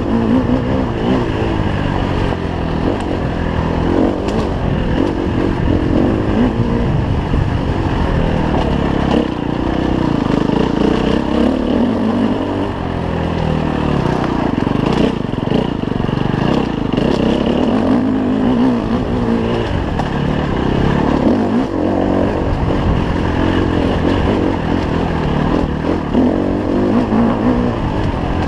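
KTM 250 EXC-F's single-cylinder four-stroke engine revving up and down as the enduro bike is ridden hard along a rough dirt trail, with a few knocks from the terrain.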